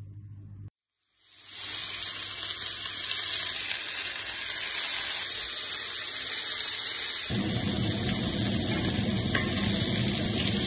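Beef sizzling as it sears on a hot cooking surface: a steady hiss that fades in about a second in, with a deeper rumble joining about seven seconds in.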